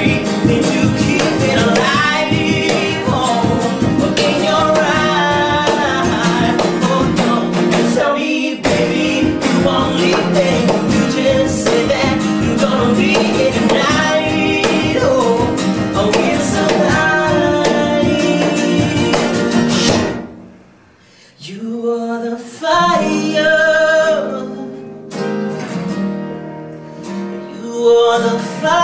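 Live acoustic pop-rock song: several acoustic guitars strummed in a steady rhythm under sung vocals. About two-thirds of the way through the full strumming stops and the song drops to quieter singing over sparse guitar.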